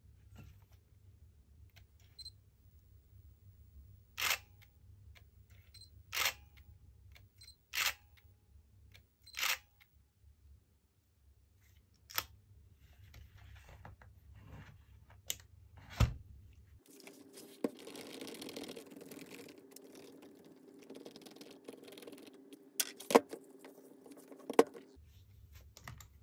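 Nikon D90 DSLR's shutter and mirror firing four times, a short clack about every two seconds: the camera cycling normally on its replacement aperture/shutter motor gear. Softer handling clicks follow, then two sharp clicks near the end.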